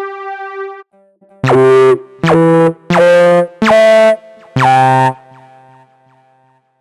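Nerd Synth software synthesizer preset being played: a held note stops about a second in, then five short, loud chords follow one after another, each about half a second long, before a faint tail fades out.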